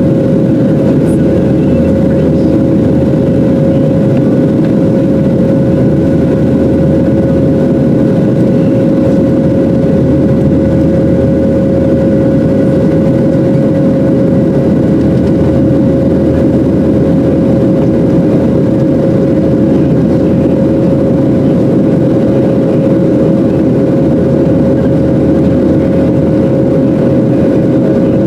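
Boeing 737-700's CFM56-7B jet engines heard from inside the passenger cabin: a loud, steady drone with a constant humming tone over a deep rumble.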